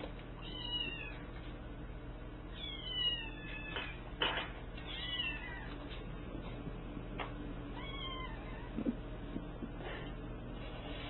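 Kittens meowing, four high calls that each fall in pitch, the second one the longest. A few sharp knocks fall between the calls.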